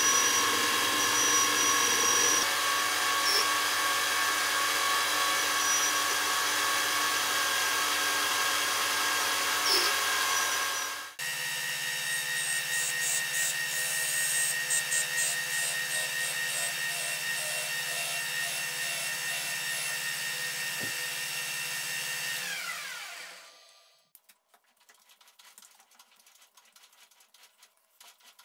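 Metal lathe running while a cutting tool works copper bar stock, a steady machine whine with cutting noise. It breaks off abruptly about eleven seconds in and starts again. About twenty-three seconds in the spindle spins down with a falling whine, leaving only faint light clicks.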